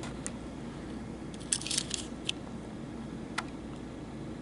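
Faint handling noise: a few short clicks and rustles as a diecast toy car is turned between the fingers, over a low steady room hum. The clicks cluster about one and a half to two seconds in, with single ones a little later.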